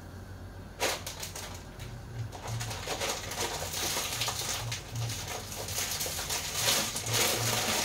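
Pots bubbling on a gas stove, a pot of water coming up to the boil beside a pan of simmering tomato sauce. It is a crackling, bubbling hiss that starts suddenly about a second in and grows louder.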